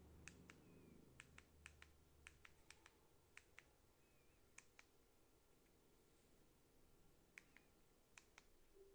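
Faint clicks of a TV remote control's buttons being pressed, each press a quick double click of press and release. There are about nine presses, in quick runs, with a pause of a couple of seconds after about five seconds.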